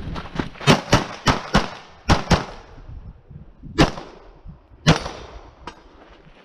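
Glock 34 9 mm pistol firing in rapid succession: three fast pairs of shots about a quarter second apart, then two single shots about a second apart, and a fainter crack near the end.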